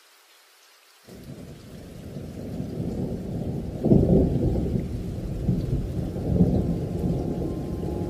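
Muffled thunderstorm sound: low rumbling thunder over rain. It starts suddenly about a second in, builds to a loud clap about four seconds in, and rolls on with further swells.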